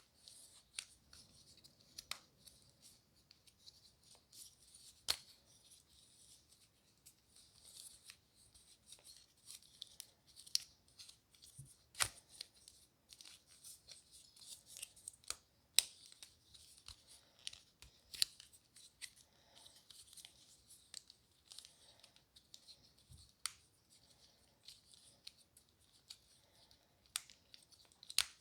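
Fidget toys being handled and pressed: irregular sharp clicks and small pops over a faint crinkly rustle.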